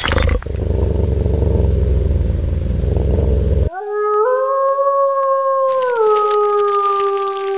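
A low rumbling noise cuts off abruptly, and about four seconds in a wolf begins one long howl. The howl rises slightly, then drops to a lower held pitch about two seconds later.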